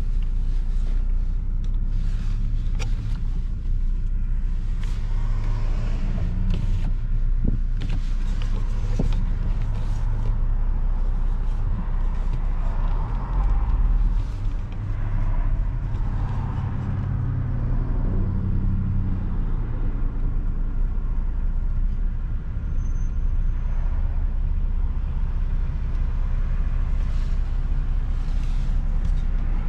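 A car being driven: a steady low rumble of engine and road noise, with scattered faint clicks.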